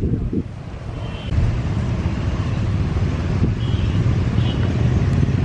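Steady low engine rumble that swells about a second in, with wind buffeting the microphone.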